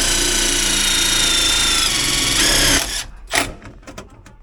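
Cordless drill driving a self-tapping screw, running steadily for about three seconds with its whine dipping briefly as the screw bites, then cutting off. A couple of sharp knocks follow.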